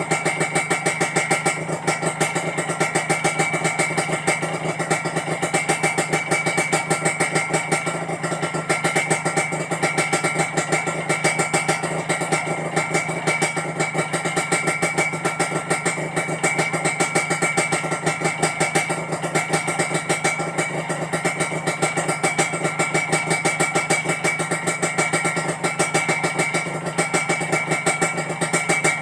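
Kawasaki Ninja R 150's two-stroke single-cylinder engine idling steadily while warming up, with a crisp, jingling rattle.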